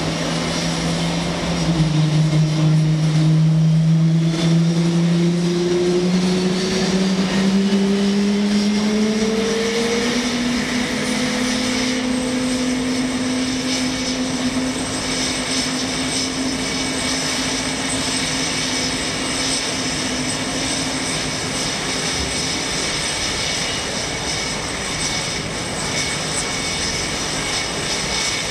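Jet engines of Blue Angels F/A-18 Hornets starting on the ramp. A low whine rises in pitch over the first ten seconds or so as an engine spools up, then levels off into a steady whine with a high-pitched ring above it.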